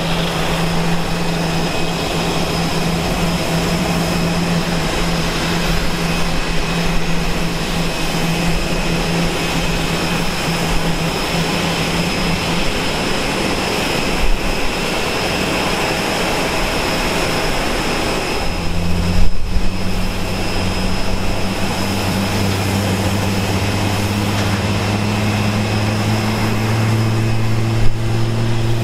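Airbus A350-900 at the end of its pushback: a steady whine over a broad hiss. About two-thirds of the way through, a deeper hum sets in and slowly rises in pitch as a Rolls-Royce Trent XWB-84 engine spools up at start.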